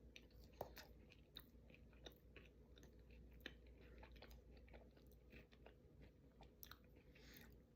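Faint chewing, with soft irregular mouth clicks and small crunches, over a low steady hum.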